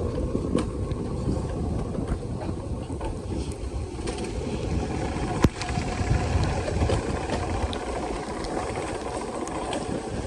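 Mountain coaster sled running down its rail track, the wheels giving a steady rumble and rattle. There is one sharp click about five and a half seconds in.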